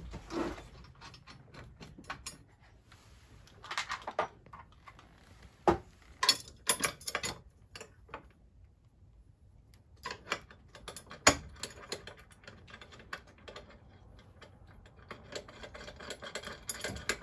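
Wrench turning the nuts on 3/8-inch Grade 8 bolts through a steel roof-anchor plate and rafter: bursts of quick metallic clicking, with a pause of about two seconds midway.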